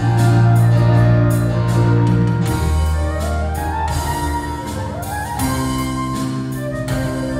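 Live band music in a church: held chords over a steady bass, the chord changing about every two and a half seconds.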